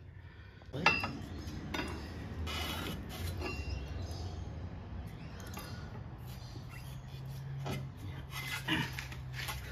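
Metal clanking and scraping as a tight rubber track is worked onto a mini excavator's undercarriage, with a sharp knock about a second in and several lighter clanks after, over a low steady hum.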